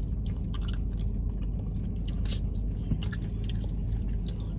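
A person chewing and biting food close to the microphone, with short scattered mouth clicks, over a steady low rumble.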